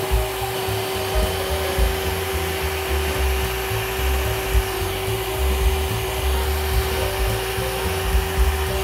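Bosch benchtop drill press running steadily, its bit boring holes through a pine strip, with a constant motor whine. Faint background music underneath.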